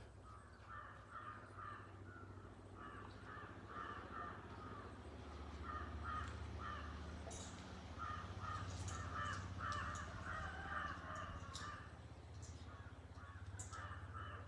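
Crows cawing over and over in runs of short calls, with a steady low hum underneath.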